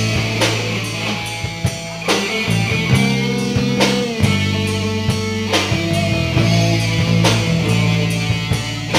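Live rock band playing an instrumental passage with no singing: electric guitars over sustained bass notes, with drum-kit hits keeping the beat.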